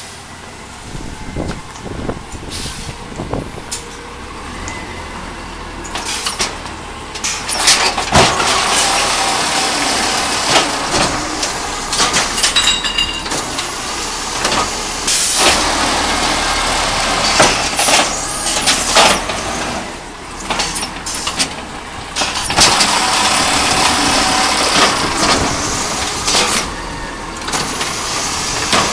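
Brand-new Peterbilt 320 natural-gas garbage truck with an Amrep automated side-loader arm: engine running while the hydraulic arm lifts a recycling cart over the hopper and dumps it. Quieter at first, the sound grows about seven seconds in, with repeated knocks and clatter as the cart is shaken out.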